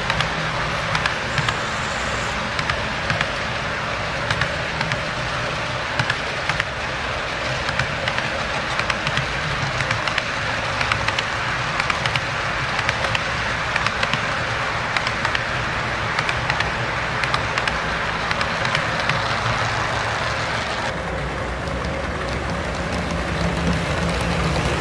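Model railroad freight cars rolling along the track: a steady rolling rumble with sharp wheel clicks several times a second. Near the end a low steady hum joins as a pair of model Santa Fe diesel locomotives passes.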